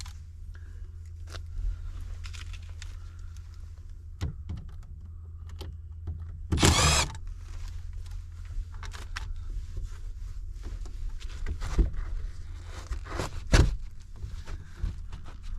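Steady low rumble of a vehicle on the move, heard from inside, with scattered clicks and knocks. About seven seconds in there is a brief, louder rustling rush.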